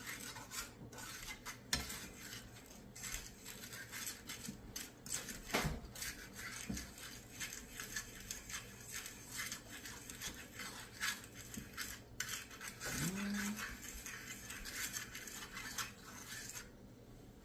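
A utensil stirring a thick glaze of melted margarine, rum and brown sugar in a pot, with quick repeated scrapes and clinks against the pot. The stirring stops near the end.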